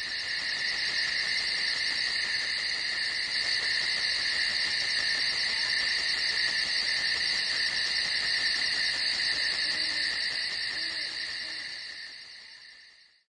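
A steady high-pitched hissing buzz with a fine, rapid flutter. It fades in at the start and fades out near the end, cutting to dead silence.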